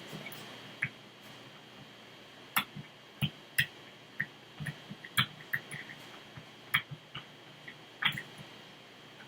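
Pick and tension wrench working the pin stack of a padlock's cylinder: a dozen or so sharp, light metallic clicks and taps at irregular intervals as the pins are lifted and set.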